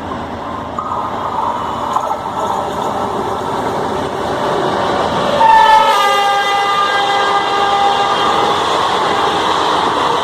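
WAP7 electric locomotive's horn sounding for about three seconds near the middle, dropping in pitch soon after it starts, over the rising rumble of the train running through at speed.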